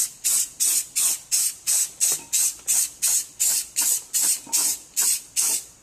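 Aerosol spray-paint can spraying in short, quick bursts of hiss, about two or three a second, as a paint coat is laid on.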